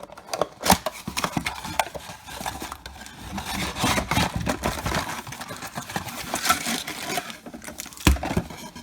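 A cardboard box and wrapped card packs being handled: rustling, scraping and tapping as the packs are taken out of the box, with a sharp knock about a second in and another near the end.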